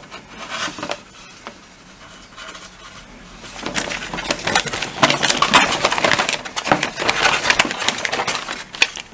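Folded paper instruction leaflet rustling and crackling as it is handled and unfolded, with a few light clicks at first and a dense run of rustling from about three and a half seconds in.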